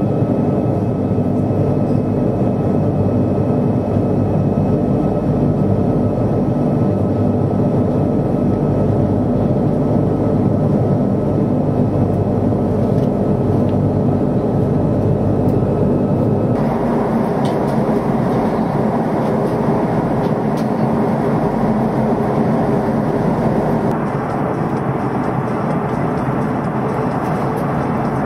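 Cabin noise inside an Airbus A340-500 in flight: a steady drone of its four Rolls-Royce Trent 500 turbofans and rushing air, with several steady hum tones under it. The sound shifts abruptly in tone, with more hiss, a little over halfway through, and drops slightly again later.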